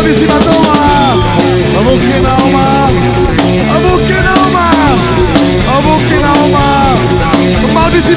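Live rock band playing a punk-rock song, with drum kit, bass and guitar under a melody line that slides up and down in pitch.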